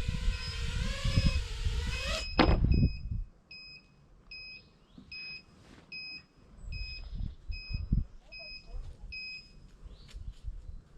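FPV quadcopter's brushless motors whining, then cutting off with a thump about two seconds in. A high electronic beep repeats about twice a second for several seconds after.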